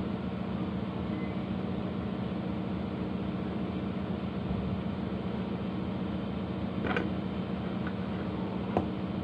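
Steady mechanical hum with a low droning tone, like a small motor or fan running, and two brief clicks near the end.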